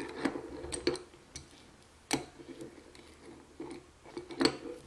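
Metal parts of a BMX freecoaster hub clicking and tapping together as it is put back together, with a handful of sharp clicks, the loudest near the end.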